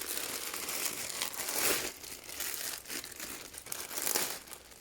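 Crinkly packaging being handled and pulled open, a continuous rustling and crackling that is loudest about a third of the way in and again near the end.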